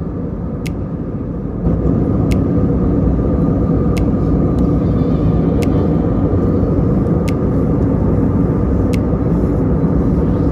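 Steady cabin roar of an Airbus A320neo airliner in cruise: engine and airflow noise heard from inside the cabin. It grows louder about two seconds in, and faint sharp ticks recur about every second and a half.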